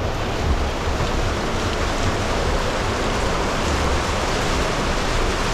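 Heavy rain falling in a steady, even hiss, with an intermittent low rumble beneath it.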